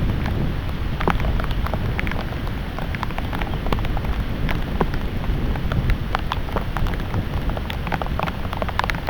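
Heavy thunderstorm rain falling steadily, with many separate drops ticking sharply on a nearby surface over a low rumble.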